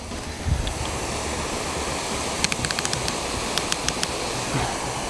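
Pop-up lawn sprinkler spray head running close up, with a steady hiss of water spray. Midway comes a series of small sharp clicks as the head is twisted by hand to adjust its spray.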